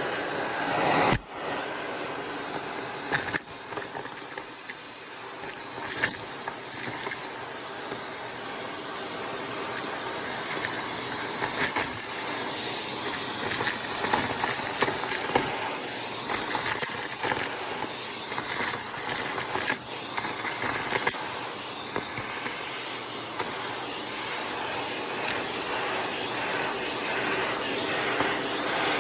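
Vacuum cleaner running with its crevice tool sucking up crunchy debris: a steady suction hiss under frequent crackles, rattles and clicks as bits are pulled up the tool, with a sharp click about a second in.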